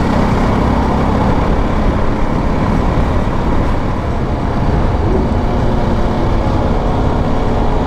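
A motorcycle riding along a city road, heard from on the bike: a steady engine and wind rumble with the noise of traffic around it.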